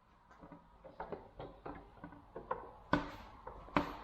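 Irregular mechanical clicks and light knocks from the control stick and its linkage on a Kubota BX23s backhoe being handled, getting louder toward the end with the sharpest knock about three seconds in.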